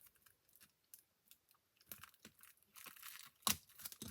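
Packaging crinkling and tearing as a pack of designer series paper is opened by hand: faint scattered clicks, then a soft crackly rustle from near the middle, with one sharper crackle about three and a half seconds in.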